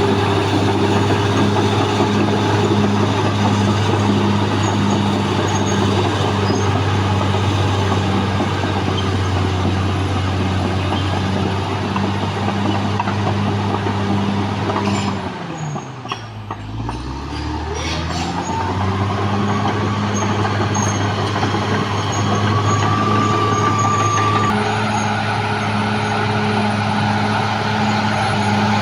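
CAT D6R XL bulldozer's diesel engine running steadily under work; about halfway through the revs drop sharply, then climb back up over a few seconds, and near the end a thin whine rises and steps up.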